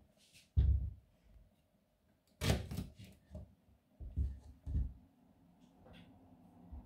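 A knife cutting a ripe banana on a plastic cutting board: a few separate knocks and thuds as the blade and fruit hit the board, with quiet handling noise between them.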